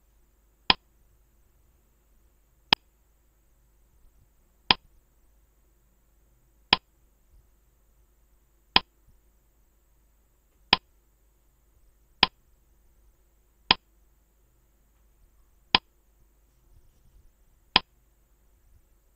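Quiz countdown-timer sound effect: a clock ticking, ten short sharp ticks about two seconds apart, counting down the time given to answer.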